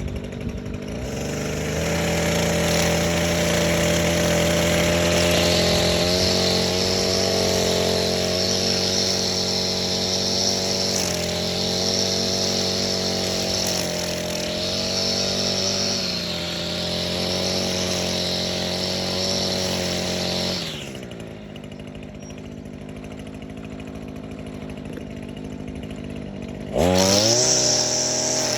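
Echo SRM-225 string trimmer's small two-stroke engine running steadily. About twenty seconds in it drops to a quieter, lower running speed. Near the end it is briefly revved up with a rising whine and let back down.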